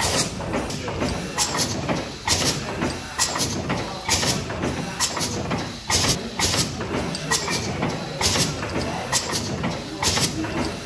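Large horizontal mill steam engine running slowly, giving a steady beat of paired sharp clicks and hisses a little under once a second, over a low continuous rumble.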